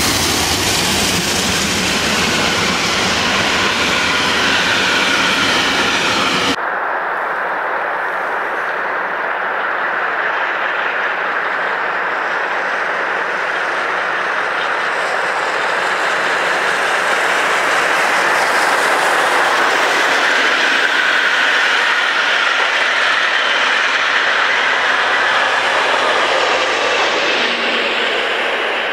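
Steam-hauled passenger train passing close, the coaches' wheels clattering over the rail joints. About six seconds in it cuts to another steam train working past farther off, its steady noise swelling and then slowly fading.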